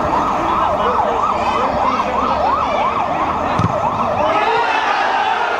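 A siren yelping up and down quickly, about three swings a second, easing off near the end.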